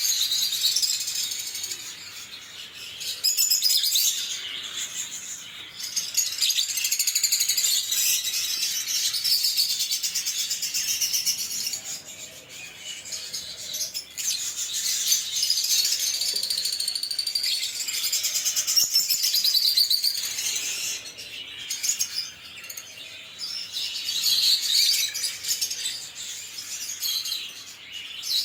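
Lovebirds (Agapornis, small African parrots) chirping: rapid, high-pitched chirps that come in busy stretches with short lulls.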